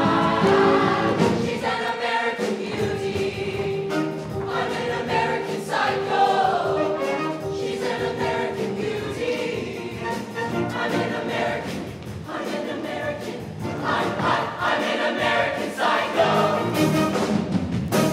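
A mixed SATB show choir singing with a live band behind it, horns and drums included. One note is held steady under the voices through about the first half.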